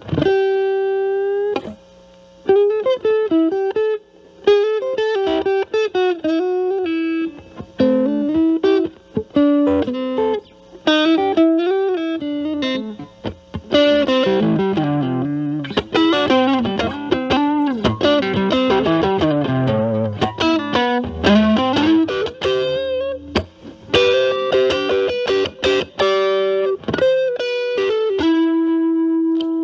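Electric Stratocaster with single-coil pickups played through an Ibanez Super Metal mini distortion pedal set at low drive, into a Marshall Valvestate amp's clean channel: a lightly driven tone. It plays single-note lead phrases with string bends and held notes, with a few chords and short pauses.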